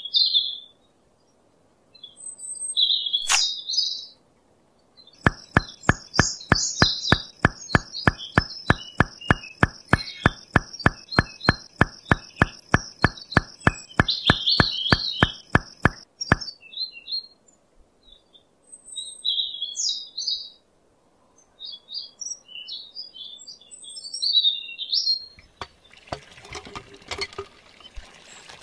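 Small birds chirping and tweeting throughout. For about eleven seconds in the middle, a rapid, even clicking of about four clicks a second runs under a steady high tone, and near the end a rushing noise begins.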